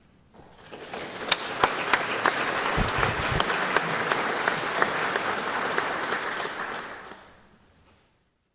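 Audience applauding after a performance: clapping that builds up about half a second in, holds steady, and fades away near the end.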